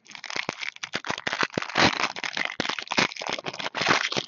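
Foil trading-card pack wrapper being crinkled and handled, a dense run of sharp crackles.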